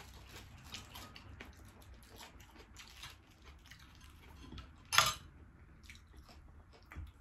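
Quiet eating sounds at a table: food being picked from plates by hand and chewed, with many soft little clicks. A single sharp clack comes about five seconds in.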